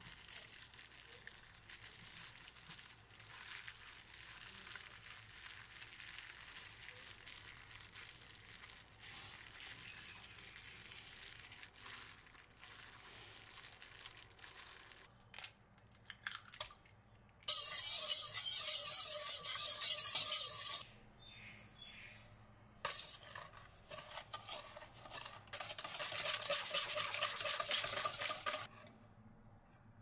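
A plastic-gloved hand rubbing butter into flour and sugar for a crumble, a soft rustle. From about 17 seconds a wire whisk beats egg against the sides of a stainless steel bowl, a fast rattling scrape, pausing for about two seconds near 21 seconds and stopping just before the end.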